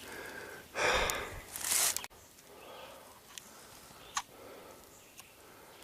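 A couple of seconds of loud rustling noise, cut off abruptly, then quiet woodland with a few faint, short, sharp calls or clicks, the clearest about four seconds in.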